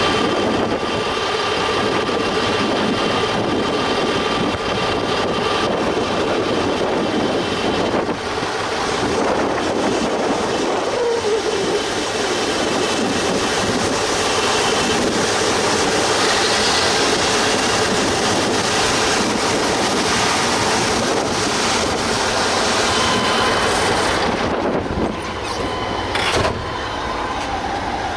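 MAZ-5551 dump truck running steadily under way, a dense, loud engine and vehicle noise, with a couple of brief dips near the end.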